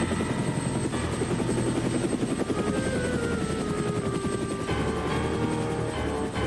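Cartoon soundtrack: a fast, steady chopping sound under music, with a tone that glides down partway through.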